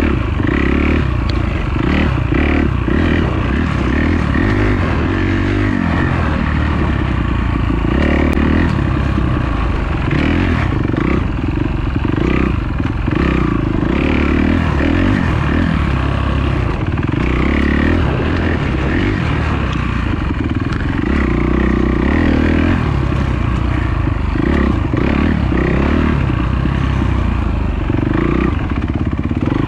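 Kawasaki dirt bike engine running hard and revving up and down continuously as it is ridden over rough trail, with frequent knocks and rattles from the bike.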